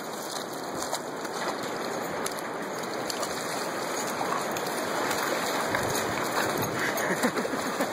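Seawater rushing over rocks and sand: a steady hiss that grows slowly louder, with a few small knocks near the end.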